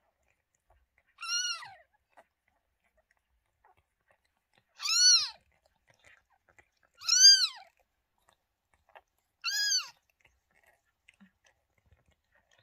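Newborn kitten mewing: four short, high-pitched cries about two seconds apart, each rising and then falling in pitch, the middle two the loudest. Faint wet clicks of the mother cat licking it come between the cries.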